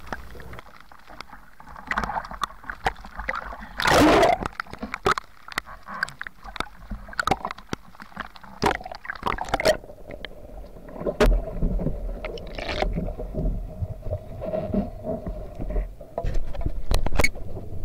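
Rough sea sloshing and splashing against a camera at the water surface in a storm, with many sharp ticks as rain and hail strike it, and a loud splash about four seconds in.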